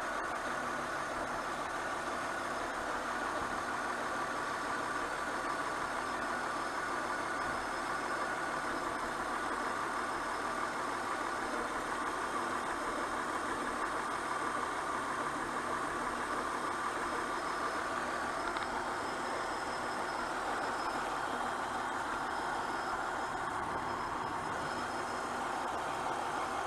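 2004 Honda Pilot's 3.5-litre V6 idling steadily, an engine with a misfire.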